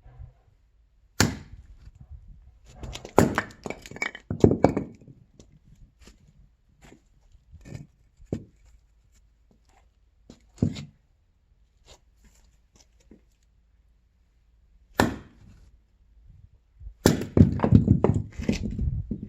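Axe striking firewood: a series of single chops at uneven gaps with quiet between them, and a quick run of knocks near the end.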